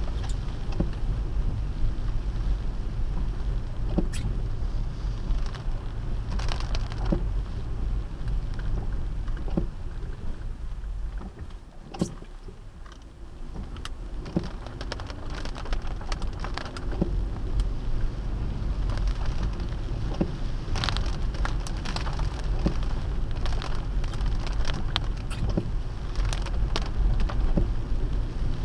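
Rain pattering on a car's windshield and roof, with scattered sharp drop clicks, heard from inside the cabin over the steady low rumble of the car driving on wet road. The rumble dips briefly near the middle.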